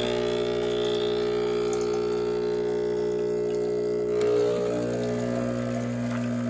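Breville Barista Express espresso machine's vibratory pump humming steadily while pulling a shot of espresso. The hum drops to a lower, stronger tone about four seconds in.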